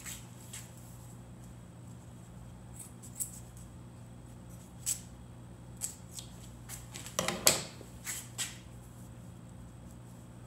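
Hands working a length of nylon rope, cutting it and tying a loop in its end: scattered light clicks and rustles, loudest in a short cluster about seven seconds in, over a steady low hum.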